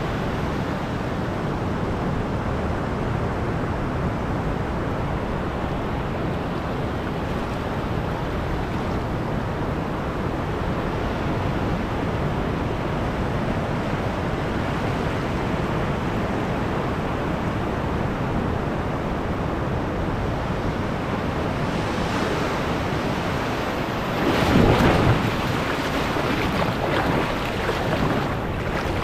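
Ocean surf breaking steadily. Near the end the wash of a wave rushes in and splashes around the rock right beside the microphone, the loudest moment, followed by a smaller second surge.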